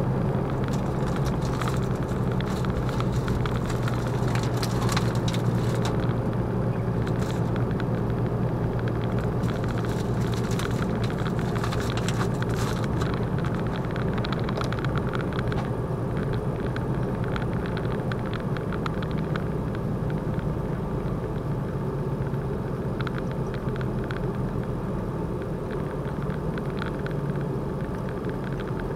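Steady drone of a lorry's engine and road noise heard inside the cab while driving along at a constant pace, with a few faint clicks and rattles in the first half.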